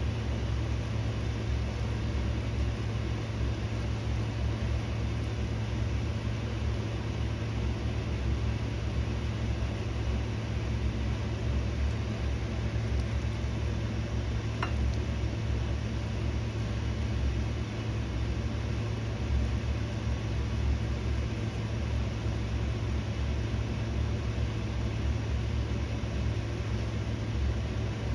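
Steady low mechanical rumble.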